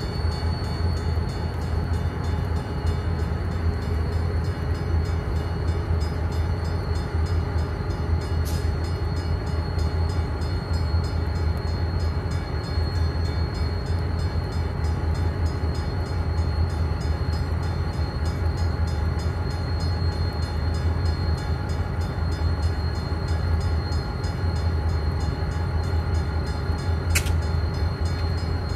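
Diesel-electric locomotives idling at a standstill: a steady low rumble with a faint, steady high whine above it. Two brief sharp clicks, one about a third of the way in and one near the end.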